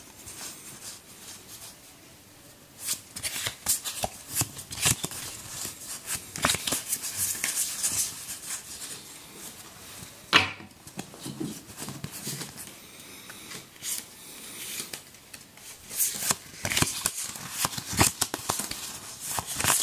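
Playing cards being sorted in the hand: irregular flicks, slides and snaps as cards are pulled out of a fanned hand and slipped back in, with one sharper snap about ten seconds in.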